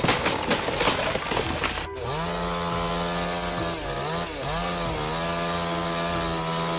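A chainsaw running steadily at high revs, its pitch dropping and recovering briefly about twice near the middle as the revs sag and pick up again. This follows about two seconds of rough, crackling noise that ends abruptly.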